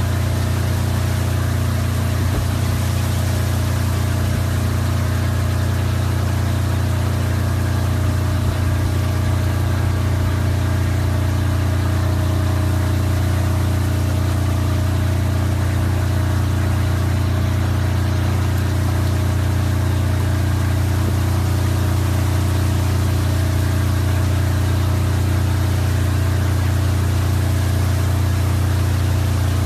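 A steady, unchanging low mechanical hum with a layer of hiss over it.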